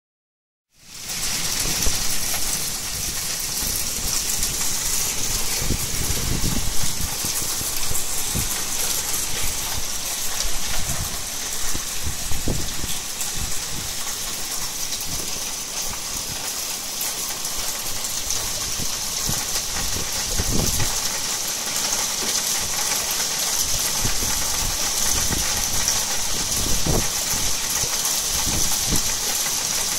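Heavy thunderstorm downpour: a steady hiss of rain pouring onto trees and roofs, starting about a second in. A few brief low rumbles rise out of it now and then.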